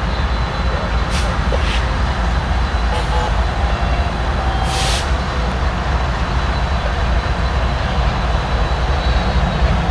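Norfolk Southern diesel freight locomotives rolling slowly past, their engines giving a loud, steady low rumble, with a brief hiss about five seconds in.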